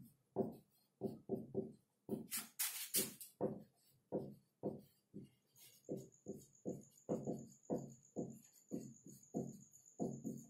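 Marker pen writing on a whiteboard: a run of short scratchy strokes, about two or three a second, with a longer hissing scrape about two seconds in. A faint, high, steady whine comes in about halfway through.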